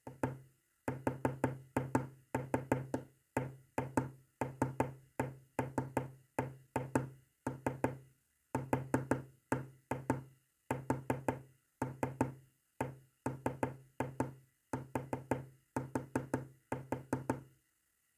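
Hollow knocks in quick groups of two to five, separated by short pauses, tapping out Morse code. They stop shortly before the end.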